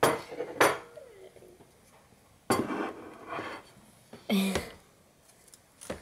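White ceramic plates set down on a wooden table: four sharp clatters, two in the first second and two more a couple of seconds apart, some ringing briefly.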